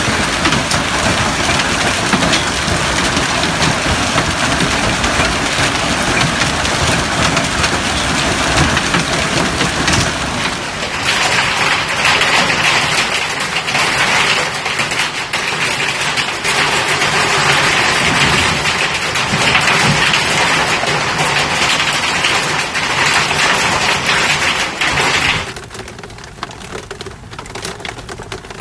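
Hail pelting down: a dense, continuous clatter of hailstones hitting the ground and nearby surfaces, mixed with the rush of heavy rain. The sound changes character about eleven seconds in and turns quieter a few seconds before the end.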